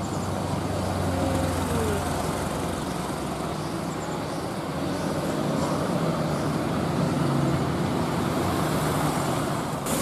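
Heavy trucks running on a steep mountain road: a steady rumble of diesel engines and tyres, with passing car traffic.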